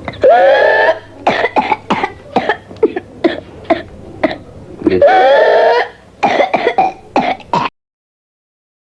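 A person coughing in fits: a long voiced sound is followed by a run of short, sharp coughs, and the pattern comes twice before stopping suddenly near the end.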